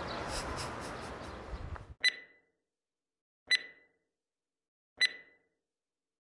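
Outdoor background noise fades out over the first two seconds. It is followed by three short electronic click-beeps, evenly spaced about a second and a half apart, over dead silence: an editing sound effect marking text appearing on an end card.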